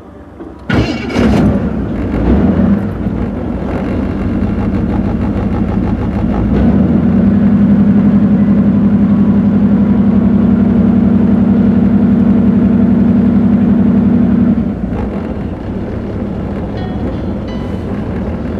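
Cammed Chevrolet Camaro engine catching about a second in and running with a lumpy 'potato potato' idle. Its speed rises to a higher steady note for several seconds, then drops back to idle about three-quarters of the way through.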